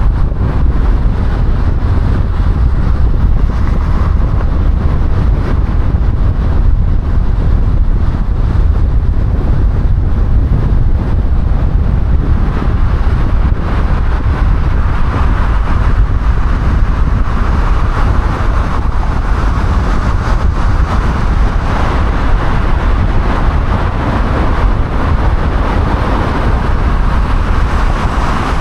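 Steady road noise of a car driving at speed on a highway: tyre and wind noise, heavy in the low end, with the tyre hiss growing stronger around the middle.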